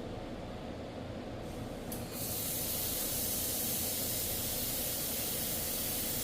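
Z40 1.5 kW laser welder working stainless steel: a steady hiss sets in about two seconds in, over a low machine hum.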